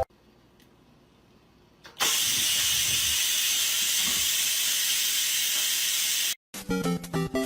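A steady, loud hiss that starts suddenly about two seconds in, after near silence, and cuts off abruptly about four seconds later.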